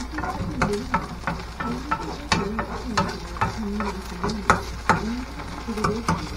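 A ladle scraping and tapping against a frying pan, about two strokes a second, as shredded potato batter is pushed and pressed flat, with the batter sizzling in the oil underneath.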